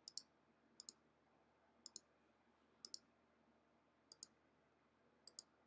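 Computer mouse buttons clicking, about once a second, with two quick pairs of clicks near the end.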